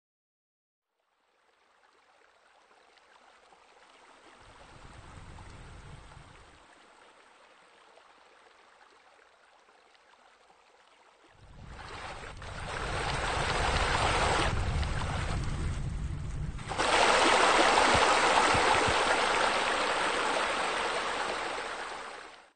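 Running, splashing water, like a pool's spillover or water feature: faint at first, swelling loud about halfway through, dipping briefly, then loud again until it cuts off abruptly at the end.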